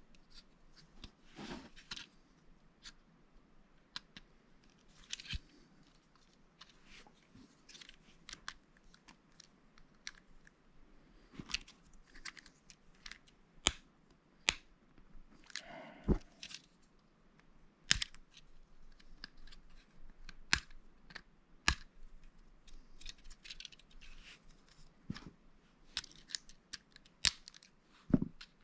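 Lego bricks being handled and pressed together: irregular sharp plastic clicks and snaps, with a short rustle of loose pieces about halfway through.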